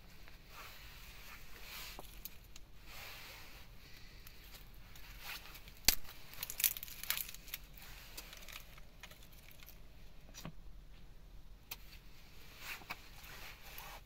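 Thin dry sticks scraping, clicking and snapping as they are pushed into a small wood cooking fire, over a low hiss. One sharp snap comes about six seconds in, with a few more clicks just after.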